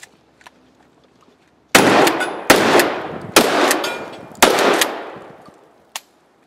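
Pump-action shotgun fired four times in quick succession, a little under a second apart, each shot followed by a long echo that dies away. A single sharp click follows near the end.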